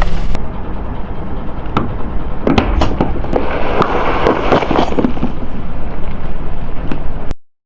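Car tyre rolling over and crushing brittle objects, a dense run of sharp cracks and crackling pops over the car's low running sound. It cuts off abruptly near the end.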